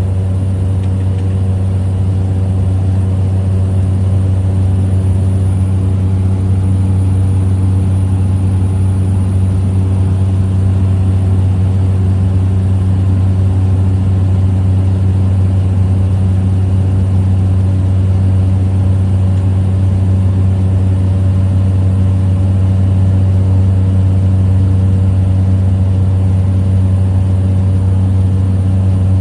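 Small plane's engine and propeller droning steadily, heard from inside the cabin, a strong low hum with overtones that holds an even pitch throughout.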